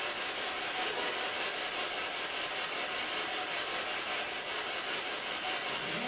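Spirit box, a radio-scanning device, sweeping through stations and giving off steady rushing static.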